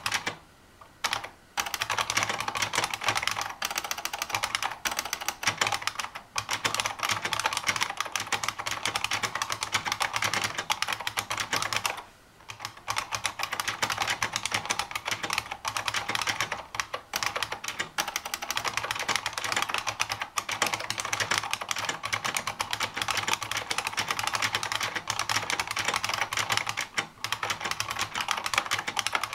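Fast, continuous typing on a 2009 Unicomp SpaceSaver keyboard with buckling spring key switches, each keystroke a sharp click. The typing breaks off briefly about a second in and again around twelve seconds in.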